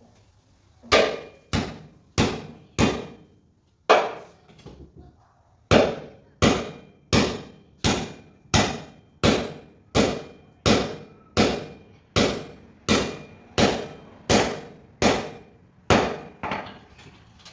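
A hammer striking metal about twenty times, each blow ringing with a metallic clang. After four opening blows and a short pause, it settles into a steady rhythm of about one and a half strikes a second, while a steel car-lift part is driven into place.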